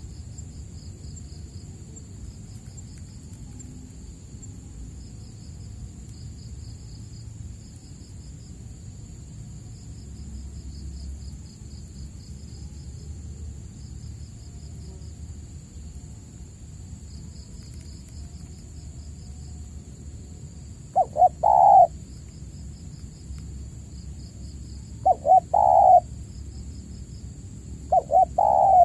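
Spotted dove (tekukur) cooing: three loud phrases of a few low coo notes each, starting about two-thirds of the way in and spaced a few seconds apart. Before them there is only insects chirping in pulsed runs over a steady high hiss.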